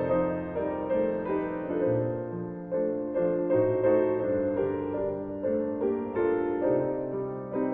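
Solo piano music, a melody of short notes over sustained low bass notes.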